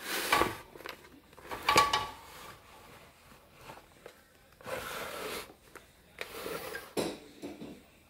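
Handling noise from a plastic table fan with a wire guard: two clattering knocks with a short ring in the first two seconds, then two stretches of rubbing and scraping against the fan's body, with a sharp click near the end.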